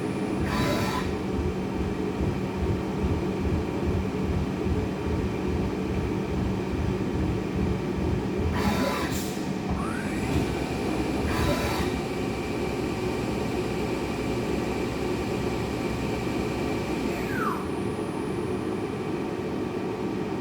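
Okuma L250II-e CNC lathe running a program in auto mode with its coolant on: a steady rush and hum of coolant and machine, broken by a few short clunks and brief falling squeaks.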